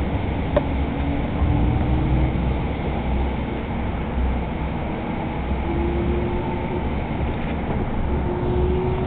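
A Hudson-Bergen Light Rail car running at speed, heard from inside: a steady low rumble of wheels on the rails. A faint hum comes and goes and edges slightly up in pitch.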